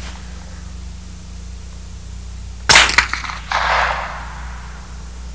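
One shot from a suppressed .22 Long Rifle rifle firing a high-velocity round of about 1,500 feet per second, a little under three seconds in. It is a sharp crack: the bullet breaking the sound barrier. A fainter drawn-out noise follows about a second later.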